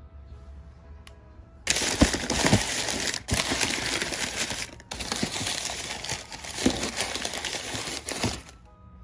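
Crumpled newspaper packing rustling and crinkling loudly as a hand digs through it in a cardboard box, with a few soft knocks among it. It starts about a second and a half in, breaks briefly twice, and stops about a second before the end. Faint background music lies under it.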